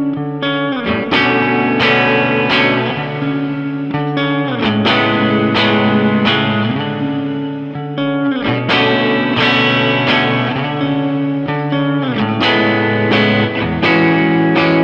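Electric guitar, a Fender Telecaster, played with two-handed finger tapping through a shimmer reverb. Quick tapped note patterns ring into each other over sustained low notes that change every few seconds.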